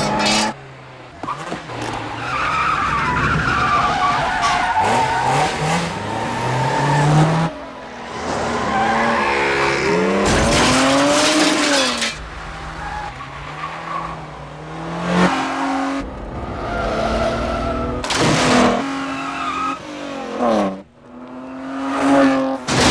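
Car-chase sound: engines revving hard and climbing through the gears, tyres squealing and skidding, with several sudden loud rushes of noise as cars pass close.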